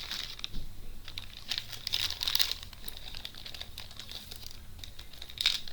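Packaging crinkling and rustling as it is handled, in irregular bursts of crackle, busiest near the start, around two seconds in and again near the end.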